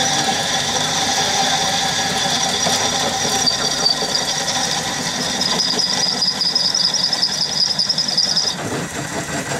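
Homemade lathe driven by a two-speed washing-machine motor through stepped belt pulleys, running with a loud, high-pitched squeal that stops about eight and a half seconds in, leaving the lower running noise of the machine.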